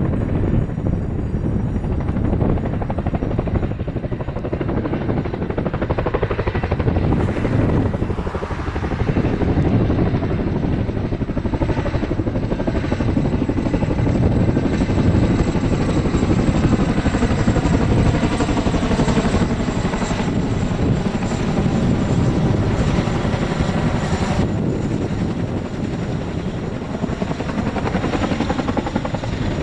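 Boeing CH-47 Chinook tandem-rotor helicopter flying close overhead with a sling load, its two rotors beating and its turbines running, loud and steady.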